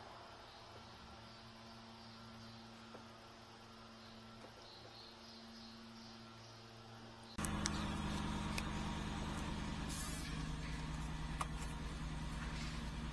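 Toyota Land Cruiser engine idling after a radiator refill, left running to purge air from the cooling system: a faint steady hum that becomes suddenly much louder and fuller about seven seconds in, with a few light clicks.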